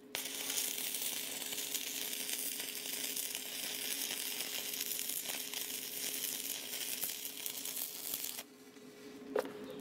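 Stick-welding arc crackling steadily as a seam weld is run on galvanized steel pipe. The arc breaks off about eight and a half seconds in.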